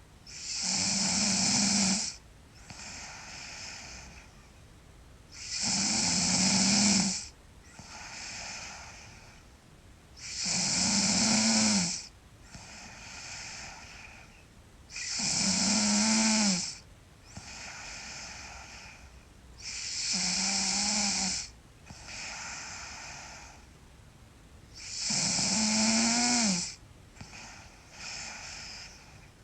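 A sleeping girl snoring loudly in a slow, regular rhythm. There are six loud, pitched snores, one about every five seconds, each lasting under two seconds, with a softer breath between them.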